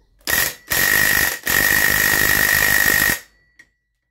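Cordless AEG impact driver hammering in three bursts, each a dense rattle with a steady high ring, the longest about two seconds, on a chainsaw clutch nut that does not come loose; it is held by factory Loctite.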